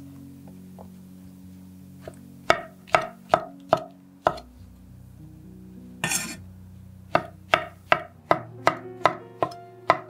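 Chef's knife slicing button mushrooms on an end-grain wooden cutting board: sharp knocks of the blade hitting the wood, a run of about five, then one longer, noisier stroke about six seconds in, then a run of about eight at roughly three a second. Soft background music underneath.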